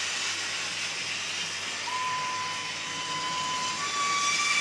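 Model railway running: a steady hiss, joined about two seconds in by a long, even whistle tone that steps up slightly in pitch near the end.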